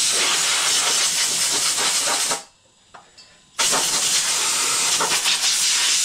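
Compressed-air blow gun blasting dust out of a mower engine's air filter housing: a loud hiss that stops a little over two seconds in and starts again about a second later.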